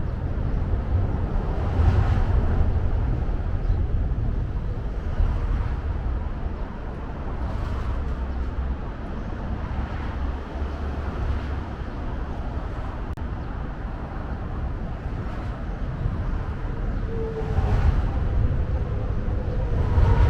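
Steady low rumble of distant city traffic, swelling a little louder about two seconds in and again near the end.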